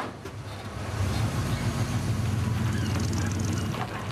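Pickup truck's engine running as the truck pulls away: a steady low engine note that grows louder about a second in.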